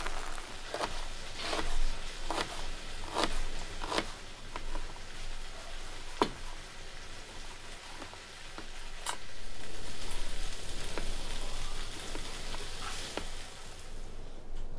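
Steak strips for fajitas sizzling in a hot griddle pan, with a utensil knocking and scraping the pan about once a second in the first few seconds and a few more times later. The sizzle grows louder for a couple of seconds after the middle.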